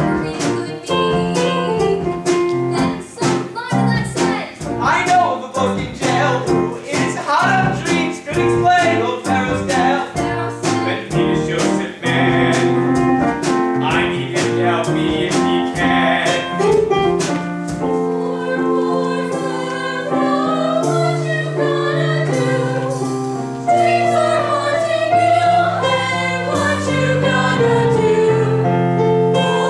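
Musical theatre song performed live: a female voice singing over an instrumental accompaniment. The accompaniment is quick and rhythmic for the first half, then changes to held chords.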